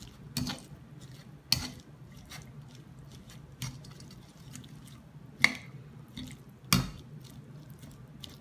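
Metal tongs tossing spiralized cucumber and carrot noodles coated in peanut sauce in a bowl: soft wet squishing with sharp clicks of the tongs, four of them louder than the rest.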